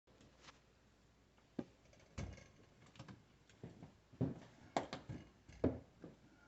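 Scattered clicks and knocks of parts being handled while a dishwasher drain pump is taken apart to get at its clogged impeller. The loudest knocks come about 2 s in and again near the end.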